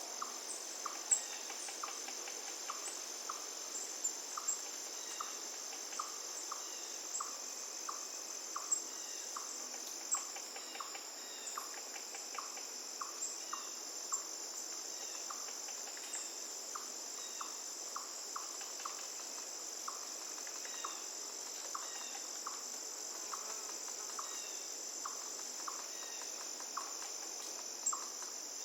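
Forest ambience dominated by a steady, high-pitched insect trill, with a short chirp repeating about twice a second and scattered small bird chirps, over a faint hiss of running river water.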